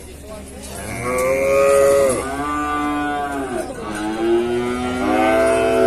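Cow mooing loudly: a long, drawn-out call in several stretches that bend in pitch, starting about a second in.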